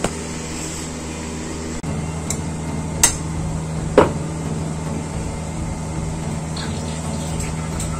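Egg being fried on a hot tawa: two sharp knocks about a second apart over a steady hiss and low hum from the hot oil and flame.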